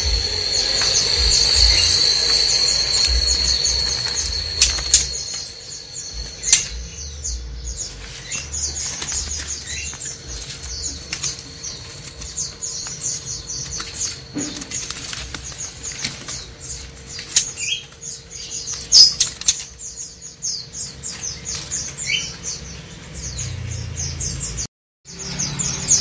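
Many caged songbirds chirping in short, high, quick calls, with a caged bird's wings fluttering now and then and scattered light knocks. A thin, steady high whistle runs through the first few seconds.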